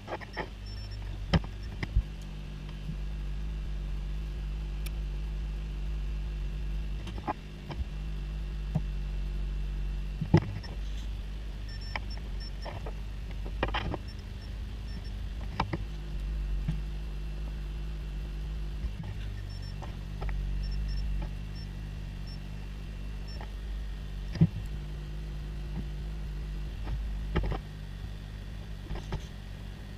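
Steady low electrical hum with scattered light clicks and taps of small tools at a repair bench.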